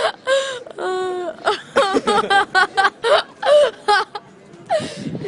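A person laughing in quick, short repeated bursts, with a long drawn-out vocal sound about a second in.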